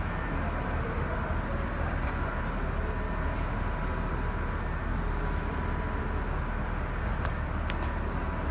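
Steady low rumble of a 2002 Chevrolet Silverado K3500 service truck's engine idling.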